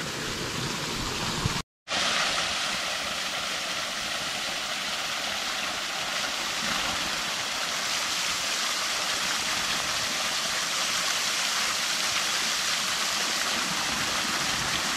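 Small forest waterfall pouring into a shallow pool: a steady splashing rush of water, after a brief break about two seconds in.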